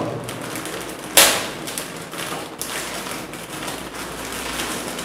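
Plastic biscuit packet being torn open by hand: one sharp rip about a second in, with lighter crinkling and crackling of the plastic around it.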